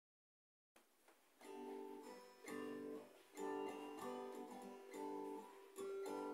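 Acoustic guitar playing a slow chord pattern, each chord struck about once a second and left to ring, starting about a second in after a moment of silence.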